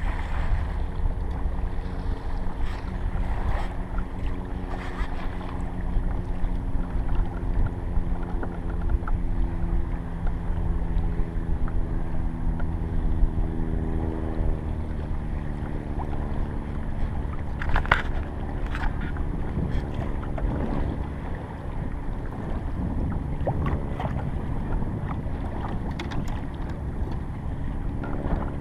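Water and wind noise around a fishing kayak out at sea, with a steady low rumble on the microphone. Under it runs a low hum whose pitch slowly drops through the middle, and a few sharp clicks come later, the clearest about 18 seconds in.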